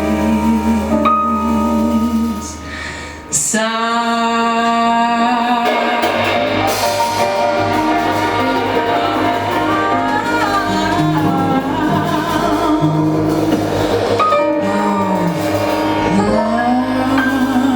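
Live jazz quintet playing a ballad: long held notes with vibrato, most likely sung, over double bass, keyboard and drums. A strong new entry comes in about three and a half seconds in.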